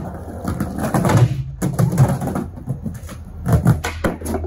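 Skateboard wheels rolling on a backyard ramp, a steady low rumble with scattered knocks of the board.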